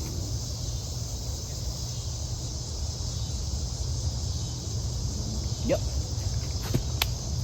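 Steady chirring of crickets and other insects, a high, even hiss-like chorus, over a low steady rumble. There is a brief sharp click about seven seconds in.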